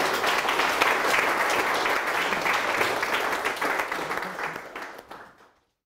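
Audience applauding, dying away and cutting off shortly before the end.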